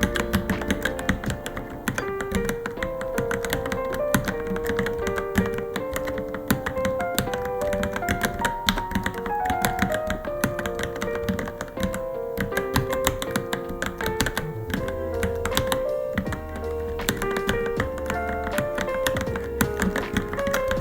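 Steady typing on a Varmilo Minilo mechanical keyboard: a fast, irregular stream of key clicks, under background music with a melody.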